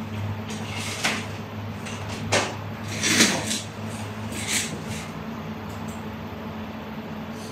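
A few short knocks and rubs of things being handled on a desk and an office chair being pulled out and sat in. The loudest comes a little past halfway, as the chair takes his weight. A steady low hum runs underneath.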